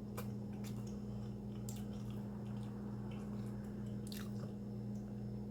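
A person chewing and biting a chicken quesadilla close to the microphone, with a few soft mouth clicks now and then, over a steady low electrical hum.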